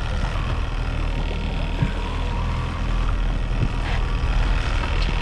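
A fishing boat's motor running steadily, with wind and water noise over it and a few faint knocks.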